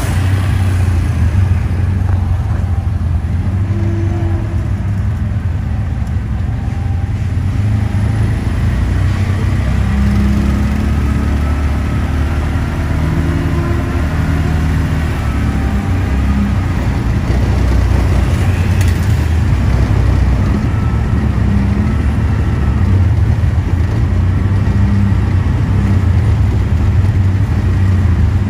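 Auto-rickshaw's small engine running steadily with road noise, heard from the passenger cabin as it rides through city traffic: a constant low drone with no pauses.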